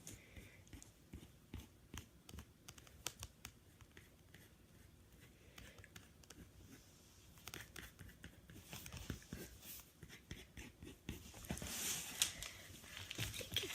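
Pen scratching on paper in many short, quick strokes, drawing fur lines, with faint paper rustles; the strokes get denser and a little louder near the end.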